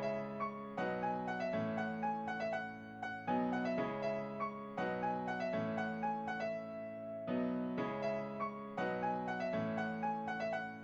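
Background music: soft, gentle piano, a repeating pattern of sustained notes and chords.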